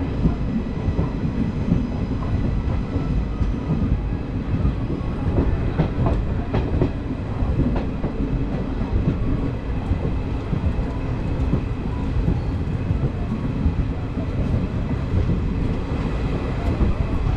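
Passenger train coaches running along the rails into a station, heard from aboard: a steady low rumble with a few scattered wheel clacks over rail joints.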